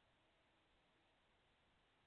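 Near silence: faint steady hiss of a security camera's microphone.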